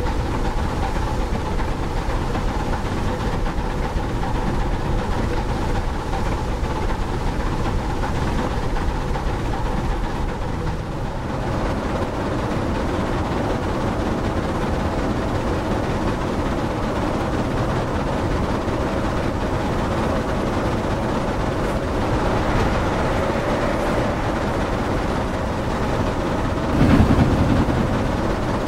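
Model Bulleid Pacific steam locomotive running along the track with a steady rattling rumble. A brief louder rush comes about a second and a half before the end.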